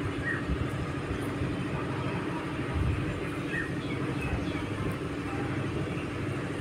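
Outdoor background noise: a steady low rumble with a faint constant hum and a few brief, faint high chirps scattered through it.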